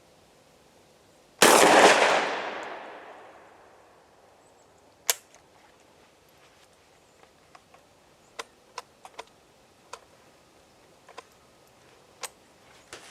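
A single 12-gauge slug shot from a Centurion BP12 bullpup shotgun, echoing for about two seconds. A sharp metallic clack follows a few seconds later, then a scatter of light clicks and clacks from the gun's action and magazine being handled.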